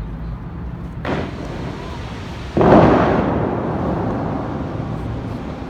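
Bellagio fountain's compressed-air water shooters firing. A smaller boom comes about a second in, then a much louder boom about two and a half seconds in, each followed by the rush of the jets and falling spray, fading slowly.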